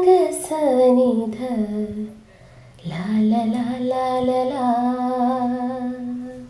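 A solo voice singing a wordless melody as a background song: a phrase gliding downward, a short breath about two seconds in, then one long held note.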